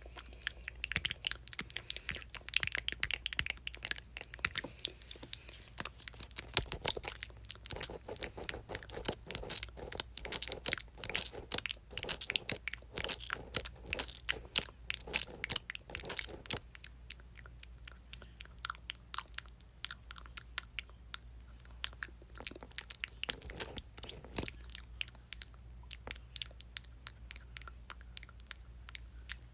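Mouth sounds: rapid clicks and smacks of the lips and tongue, densest through the middle and thinning out toward the end.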